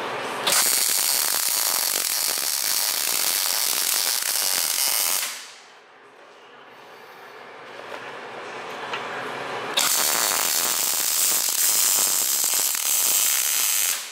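Electric welding arc crackling in two runs, about five seconds and then about four, each starting and stopping abruptly, as a steel mounting tab is welded to the motorcycle frame rail and then to the exhaust pipe.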